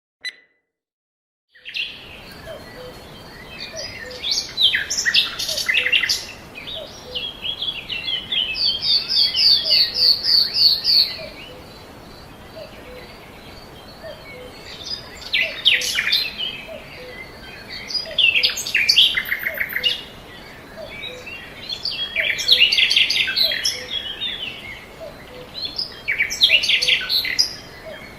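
Songbirds singing: several overlapping songs of quick chirps and trills, coming in phrases with short pauses, over a faint steady background hiss. The birdsong starts about two seconds in, after near silence.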